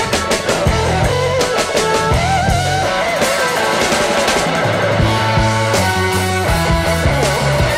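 Background rock music: a guitar melody with bending notes over bass and drums.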